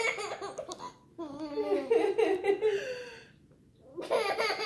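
A baby laughing in three bouts of giggles, with short breaks about a second in and a little past three seconds in.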